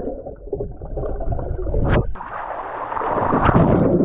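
Swimming-pool water splashing and gurgling, muffled and dull, with a brief sharp knock a little under two seconds in.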